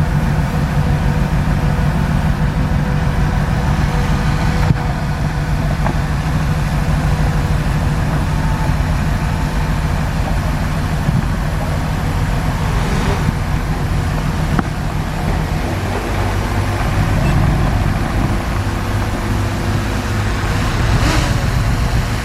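Bulldozer's diesel engine running steadily under load while pushing dirt, a continuous low drone whose pitch rises and falls slightly as the load changes.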